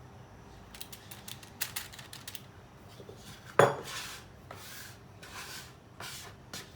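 Kitchen utensils and dishware clinking and clattering during baking prep, with one sharp, loud knock about three and a half seconds in, then short scraping or rubbing sounds.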